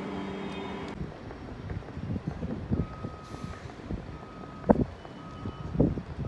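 A steady electric hum from a double-deck electric train standing at the platform stops abruptly about a second in. It gives way to short electronic beeps on one pitch, about one a second, over low rumbling with a single loud knock about halfway through.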